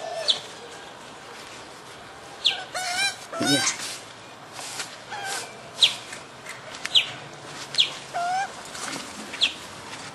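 Pacific black duck ducklings peeping: short, high, downward-sliding peeps, one every second or so. A tangle of other, warbling bird calls comes about three seconds in.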